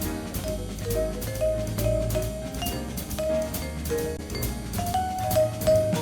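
Background music: a jazzy tune with drum kit, bass and short melody notes over a steady beat.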